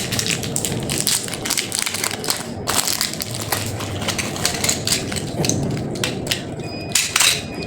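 Continuous crunching and crackling of candy packaging being crushed and handled, with many quick irregular cracks and a louder burst near the end.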